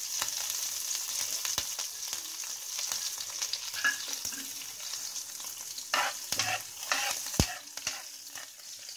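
Mustard seeds, cumin seeds and chopped green chilies frying in hot oil in a pan for a tempering: a steady sizzle with small crackles. From about six seconds in a spatula stirs through them, with a sharp knock at about seven seconds.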